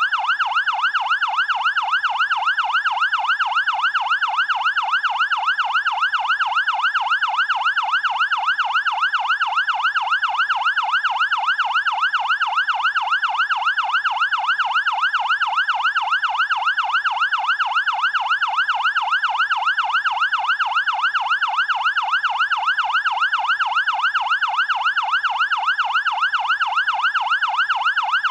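Fire engine's electronic siren on its fast yelp, the pitch sweeping rapidly up and down over and over in an even, unbroken pattern.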